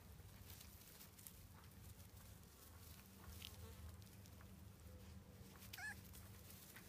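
Faint buzzing of a flying insect, coming and going over near silence. There are a few soft ticks, and one brief wavering squeak about six seconds in.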